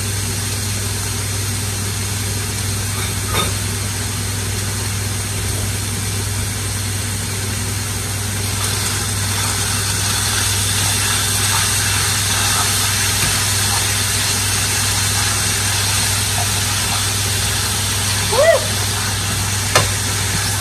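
Ground beef beginning to sizzle in a skillet as a utensil breaks up and stirs the raw meat in the pan, over a steady low hum. The sizzle grows a little louder about halfway through.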